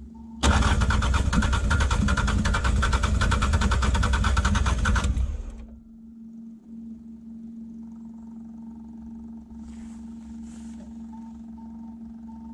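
A mini excavator's diesel engine is cranked loudly for about five seconds while air is being bled from its fuel system after it ran out of fuel, and it does not keep running. When it stops, a steady hum is left going.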